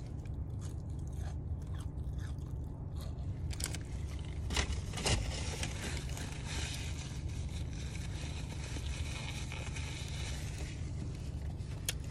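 Close-up eating sounds of a chicken breakfast sandwich being bitten and chewed: small crunches and mouth clicks, with two louder crunches about four and five seconds in, over a steady low hum.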